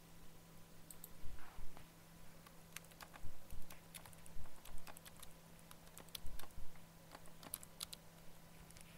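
Irregular clicks and taps of typing on a computer keyboard, over a steady low electrical hum.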